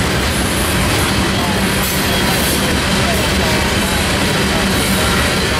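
Freight train of covered hopper cars rolling past at speed: steady, unbroken wheel-on-rail noise.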